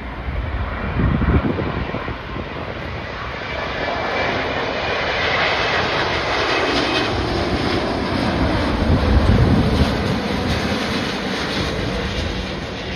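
Airbus A350-941's two Rolls-Royce Trent XWB turbofans passing low on final approach: a jet roar that builds and is loudest about nine seconds in, with a pitch sweep that falls as it goes by.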